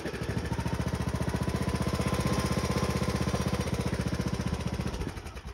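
A John Deere riding lawn tractor's engine turning over in a rapid, even chugging beat for about five seconds, then cutting out without staying running: a failed start attempt.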